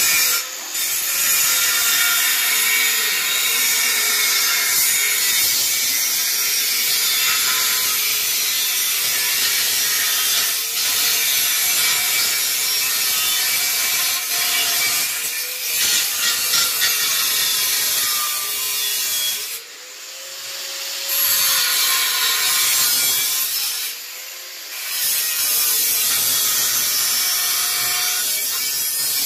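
Handheld angle grinder cutting through stainless steel pipe, a steady harsh grinding whine. Twice past the middle it briefly lets off and the motor note dips, then climbs back as the disc bites again.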